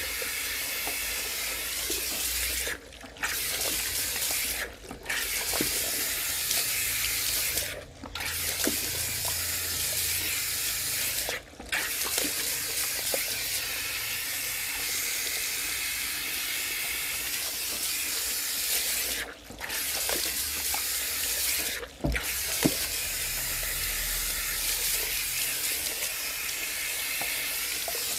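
Handheld shower sprayer at a salon shampoo basin, its water spray hissing steadily on the client's hair and into the basin as the hair is rinsed. The spray cuts out briefly about six times, with small splashes throughout.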